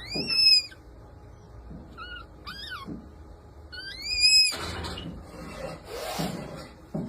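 Red panda giving high-pitched squealing calls, four in all: a loud arched squeal at the start, two short ones around two to three seconds in, the second sliding down in pitch, and a longer loud one about four seconds in that rises and then holds. Softer rustling follows near the end.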